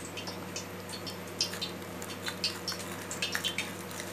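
Wet, squelching clicks of thick gram-flour batter being mixed by hand in a steel bowl, irregular and more frequent from about a second and a half in, over a steady low hum.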